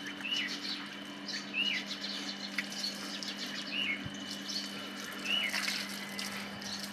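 A small bird giving short, repeated chirps, about one a second, over a steady low hum.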